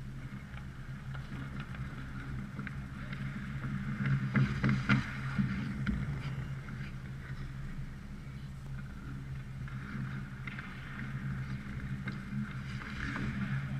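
Hockey skates scraping and carving on rink ice near the net, with a louder flurry of scrapes and knocks about four to five seconds in, over a steady low hum in the arena.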